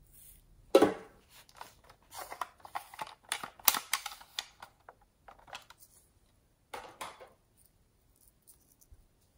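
Hard plastic objects being handled, clicking and rattling. There is a sharp clack about a second in, a run of quick clicks and rattles in the middle, and one more short rattle near the end.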